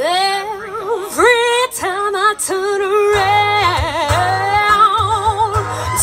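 A woman singing solo into a microphone. Her voice slides up into long held notes, with acoustic guitar underneath.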